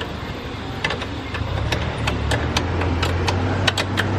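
An engine running steadily, its low hum growing louder about a second and a half in, with scattered sharp metallic clicks and taps.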